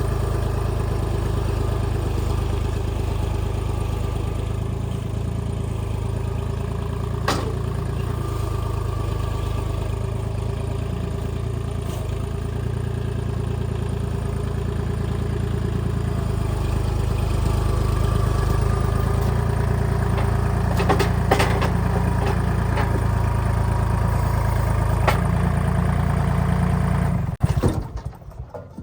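Kubota L2501 tractor's three-cylinder diesel engine running steadily, a little louder from about two-thirds of the way in, with a few sharp knocks and clatter, then shut off near the end.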